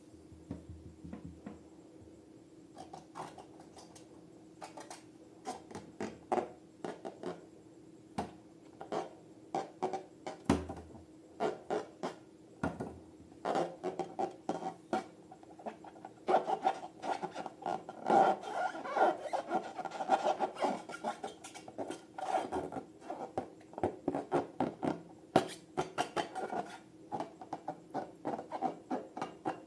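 Hands working balloons and slime: a long run of rubbing with dense crackling clicks, which thickens from about three seconds in.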